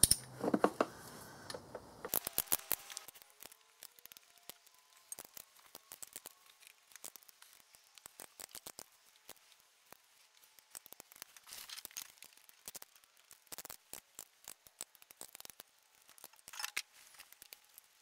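Ratchet of a torque wrench clicking as the lower intake manifold bolts are taken to final torque. There are quick runs of small metallic clicks, the densest about two seconds in, around eleven seconds and near the end, with scattered single clicks between.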